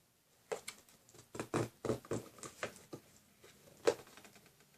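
Packaging being picked and scraped at by hand: irregular small clicks and scratches from a taped box, with one sharper click near the end.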